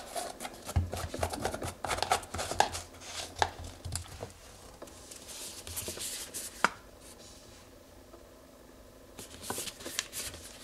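A plastic engine-oil bottle being handled: its screw cap turned with a run of sharp plastic clicks and scrapes, then fingers rubbing and gripping the bottle, with a few more clicks near the end.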